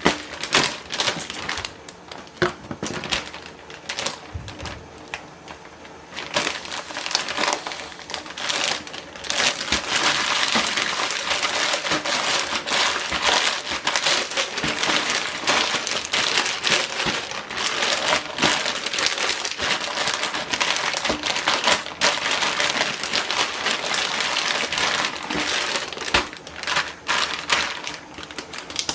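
Plastic freezer bags crinkling and rustling as they are handled and pressed flat to squeeze the air out, with many short sharp clicks and taps among the crinkling.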